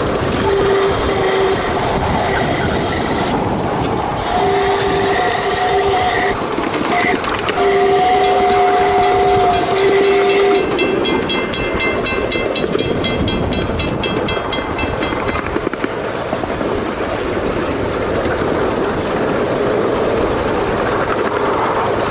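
Miniature ride-on train running along its track, its horn sounding one steady note in several blasts, short and long, for a grade crossing. About halfway through the horn stops and a crossing-signal bell rings rapidly for a few seconds as the train passes it.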